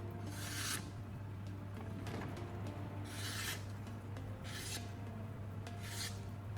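A knife blade scraping in four short strokes, spaced a second or more apart, over a steady low hum.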